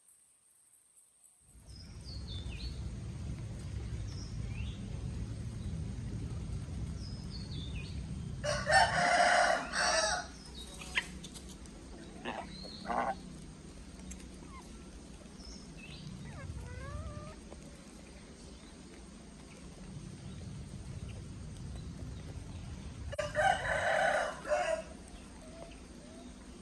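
Rooster crowing twice, once about nine seconds in and again near the end, each crow lasting under two seconds. Between the crows there is a low steady rumble and a few faint short chirps.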